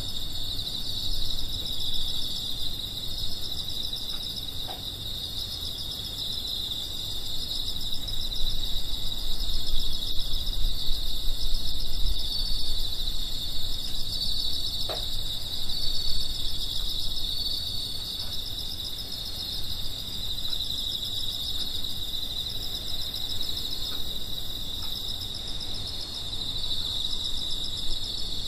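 Autumn night insects, crickets, chirping in a dense steady chorus of rapid pulsing trills, with a low rumble underneath.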